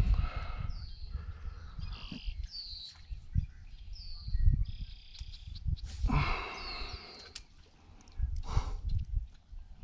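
Birds calling outdoors: short, high chirps that fall in pitch, repeated several times. A few brief rushing noises, the largest about six seconds in, and gusty low rumble like wind on the microphone run beneath them.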